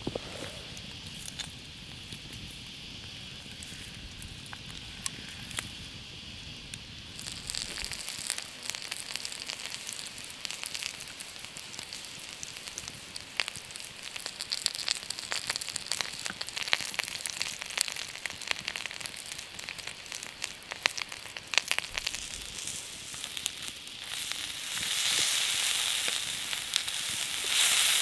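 Campfire crackling under a flat cooking stone, then pieces of meat sizzling on the hot stone with frequent sharp pops and spits. The sizzle grows louder near the end.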